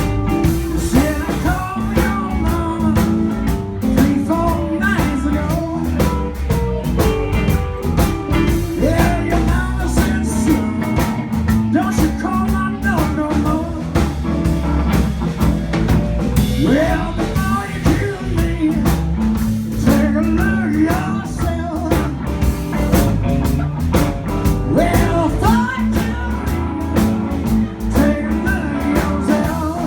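Live blues band playing: electric guitar lead with bent notes over bass and drum kit.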